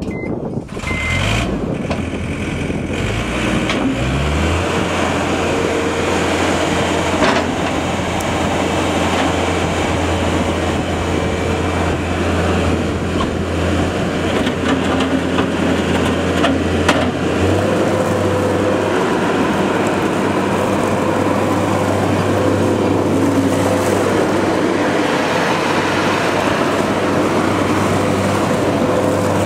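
Turbocharged diesel engine of a John Deere 317 skid steer loader running. Its pitch climbs over the first few seconds to a steady speed, then steps up slightly a little past halfway.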